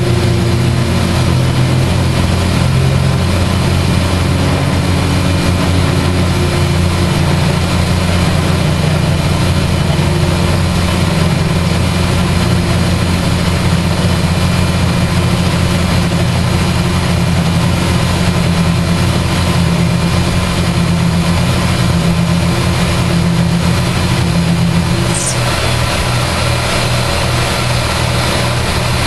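JET JMD-15 mill/drill's spindle running steadily while an end mill cuts a slot in a cast-iron brake rotor, a loud hum under a hiss of cutting. Near the end the sound changes, with a brief high squeak, as the cut finishes and the end mill lifts clear of the slot.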